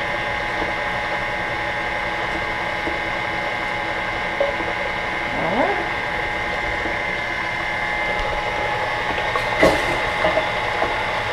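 KitchenAid stand mixer running at medium speed, a steady motor whine, beating cake batter. A few light knocks near the end.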